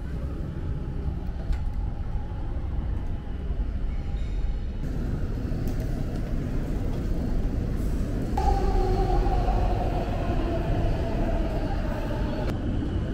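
Street and railway noise beside a commuter rail line: a steady low rumble of traffic and trains. Past the middle, for about four seconds, a train's whine slowly falls in pitch.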